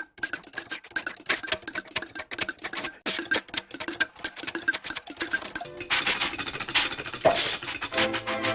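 Two old Disney cartoon sound effects. First a fast, irregular mechanical clatter of many clicks, then, near the end, a change to a different clattering effect with a pitched tone over it.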